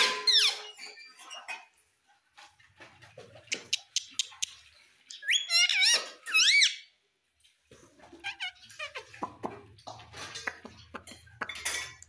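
Indian ringneck parrot giving high, squeaky chirping calls: a burst right at the start and a run of rising-and-falling notes about halfway through. Light clicks and taps come in between.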